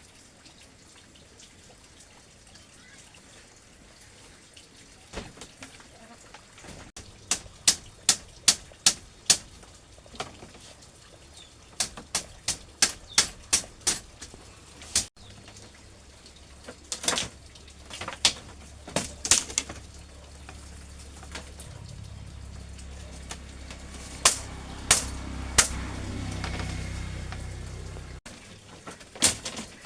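Sharp knocks in quick runs of three to six, about three a second, repeated in several groups. A low rumble builds in the second half and cuts off near the end.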